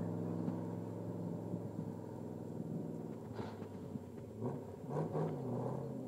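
1972 Ford Bronco's engine running under load as it crawls up a rock ledge, a low steady rumble that fades as the truck pulls away over the crest. A couple of brief louder bursts come near the end.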